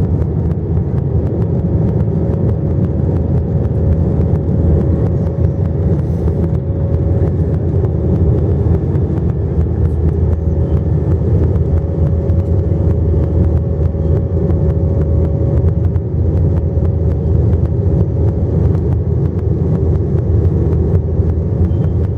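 Jet airliner cabin noise: a steady low rumble from the engines and airflow, with a thin steady hum over it.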